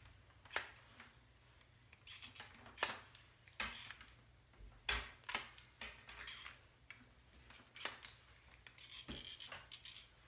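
Flat iron working on hair: the plates clack open and shut in a string of sharp, irregular clicks, with the soft rustle of hair sliding between them.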